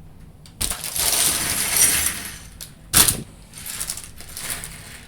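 Loose plastic Lego pieces rattling and clattering for about two seconds, then a single sharp click about three seconds in, followed by softer handling of the pieces.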